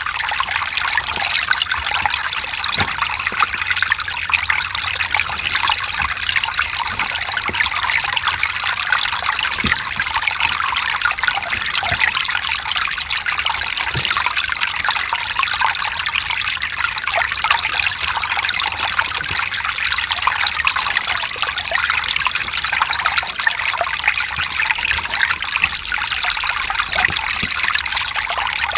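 Mountain stream running steadily over rocks: a constant, even splashing and trickling rush.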